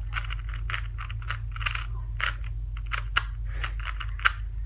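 Plastic 3x3 Rubik's cube layers being turned in quick succession, a string of clicks and clacks about two to three a second, with a sharper click near the end, over a steady low hum.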